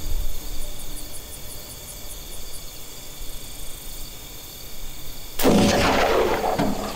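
A single loud gunshot from a deer hunter's gun about five and a half seconds in, its report echoing on for a second or so.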